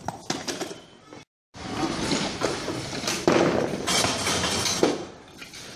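Loaded barbell with bumper plates clanking and thudding as it is lifted in a weightlifting gym, with a few sharp knocks. The sound cuts out completely for a moment a little over a second in.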